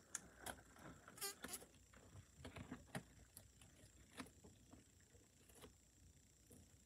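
Faint scattered clicks and light rustling, with a quick rattle of clicks about a second in.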